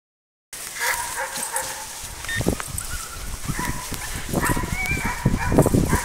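A dog whining in short, high-pitched cries, with wind buffeting the microphone in low thumps.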